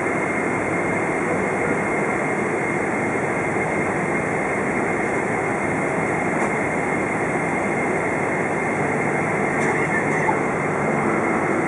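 Cabin noise inside a Boeing 777-200 taxiing on its GE90 engines at idle: a steady rumble of engine and airflow with a thin engine whine held at one pitch.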